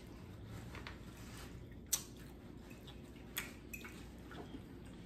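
Quiet close-up eating of spaghetti with meat sauce: soft wet chewing and mouth sounds, with two sharp clicks about two seconds and three and a half seconds in.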